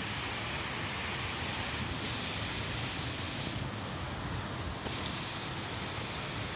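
Steady, even rushing noise with no distinct events, its high hiss thinning for about a second midway.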